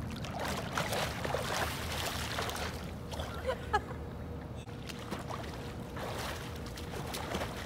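Swimmers splashing and moving through swimming-pool water, an irregular run of splashes and sloshing.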